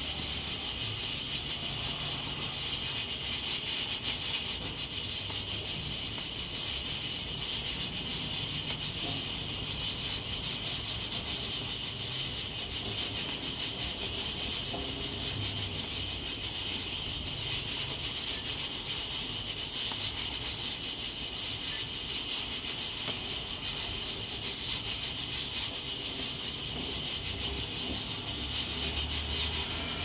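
Nigro external-locking pressure cooker hissing steadily as steam escapes through its valve, a sign that it is up to pressure. The hiss is high and even, with no breaks.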